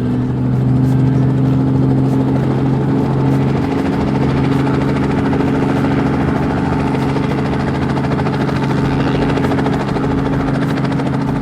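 Rescue helicopter engine and rotor running steadily just after start-up, a loud, even drone.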